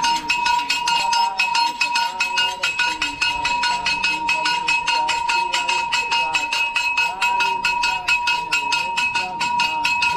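Rapid, evenly repeated ringing strikes, about six a second, over a steady ringing tone, with voices underneath.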